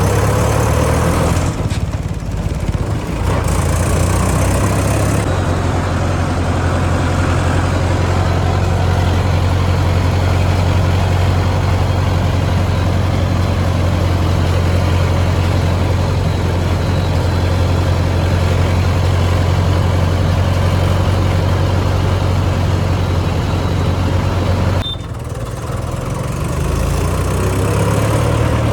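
Heavy vehicle's engine running steadily with a deep, even hum; its note changes about five seconds in and drops briefly near the end.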